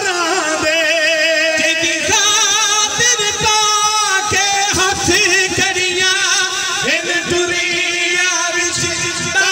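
A man chanting a noha, a Shia mourning lament, through a microphone and loudspeakers, his voice wavering on long held notes. Under it come short thumps, typical of mourners striking their chests in matam.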